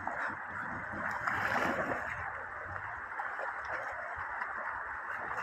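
Shallow river water running over stones, with a dog splashing as it wades through, the splashing loudest about one and a half seconds in.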